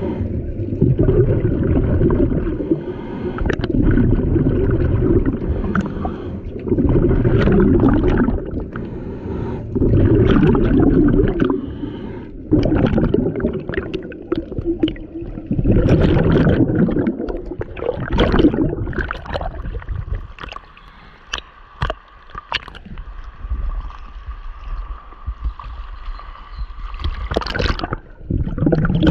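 Scuba diver's exhaled bubbles from the regulator, heard underwater: bubbling bursts every two to three seconds, growing fainter and sparser in the last third.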